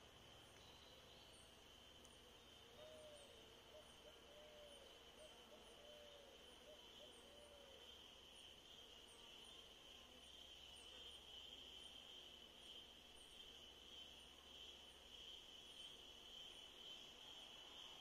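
Faint outdoor ambience: a steady high-pitched insect drone with a soft high chirp repeating about once a second, and four short, low, arching calls a few seconds in.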